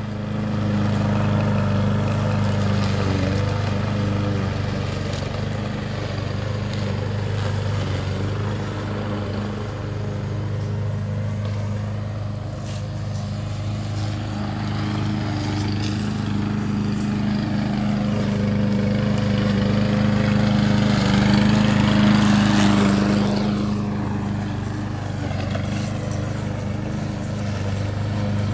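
Walk-behind petrol lawn mower engine running steadily while cutting grass, with one even low engine note, louder for a few seconds around twenty seconds in.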